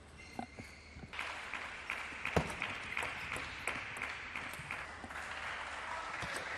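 A few table tennis ball clicks as the rally ends, then from about a second in a small crowd claps and applauds, with individual hand claps standing out.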